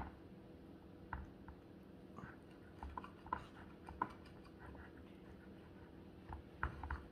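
Cutlery cutting a piece off a burrito on a plate: scattered light scrapes and clicks against the plate, a cluster of them around three to four seconds in and again near the end.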